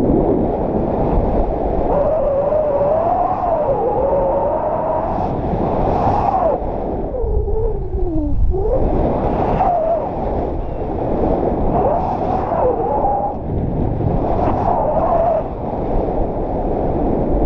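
Strong wind rushing over an action camera's microphone in paraglider flight, with a thin whine that keeps sliding up and down in pitch.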